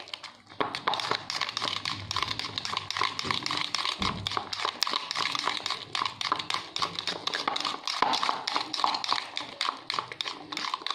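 Wire whisk beating thick shrikhand (sweetened hung curd) in a bowl: the wires tick and tap rapidly and continuously against the bowl, starting about half a second in.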